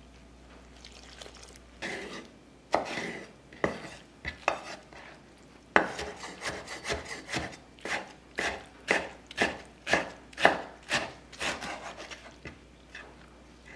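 Kitchen knife cutting aged kimchi on a wooden cutting board: a few separate knocks at first, then from about six seconds in a steady run of chops, about two a second. Before the cutting starts there is faint stirring with a wooden spoon in an enamel bowl.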